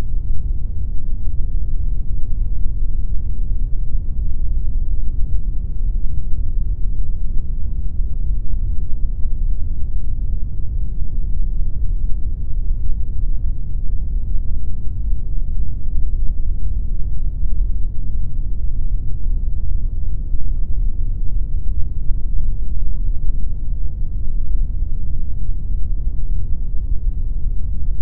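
Steady electronically generated pink noise: an even, unchanging rushing sound, weighted heavily toward the deep low end.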